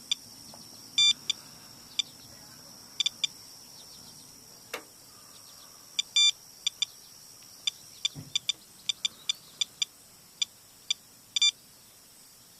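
Geiger counter beeping at random intervals, one short chirp per count, about two a second, as it measures rainwater runoff from a downspout. The count is raised: the owner reads it as six to eight times his normal background.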